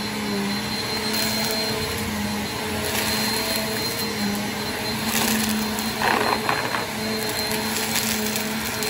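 Upright bagless vacuum cleaner running steadily with a high motor whine, while sequins and confetti crackle and rattle now and then as it sucks them up from the rug.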